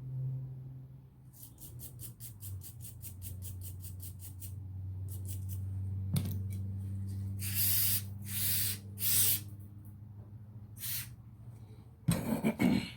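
A small bristle brush scrubs a ratchet pawl in quick, rapid strokes. Then come three short hissing bursts of spray cleaner, and near the end a brief clatter as the small pawl is dropped.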